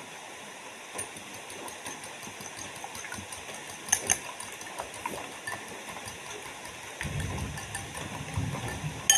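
Eating soursop close to the microphone: wet chewing and small mouth clicks throughout, with a louder pair of clicks about four seconds in as a metal fork scoops the soft flesh. A low, muffled chewing sound comes in about seven seconds in.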